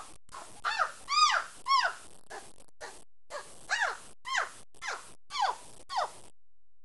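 A series of short, high-pitched whooping calls, each rising and then sliding down in pitch, in two runs with a short pause between.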